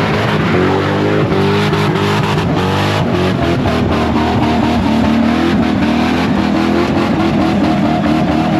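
Lexus LS400 sedan doing donuts: its engine is revved hard, the pitch rising and falling as it slides, while the rear tyres spin and squeal on the asphalt.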